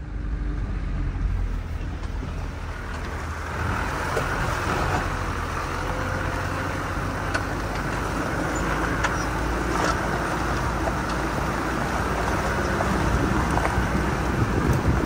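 Toyota off-roader driving down a gravel track, heard from beside the front wheel: a steady low engine hum under the crunch of tyres on gravel, with a few small stones clicking.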